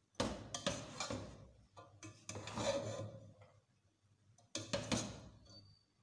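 Slotted spatula scraping and knocking against a pot as boiled rice and vegetables are stirred and tossed. It comes in three bursts of scraping and clatter with short quiet gaps between them.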